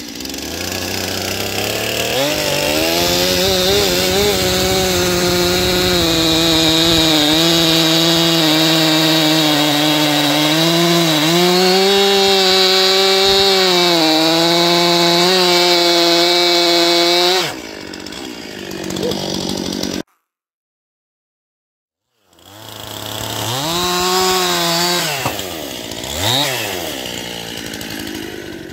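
Stihl MS 261 C two-stroke chainsaw revving up and cutting across a black walnut slab at full throttle, its pitch dipping again and again as the chain bites into the wood, then dropping off about 17 seconds in. After a short gap it revs up and cuts again, the pitch sagging under load a couple of times.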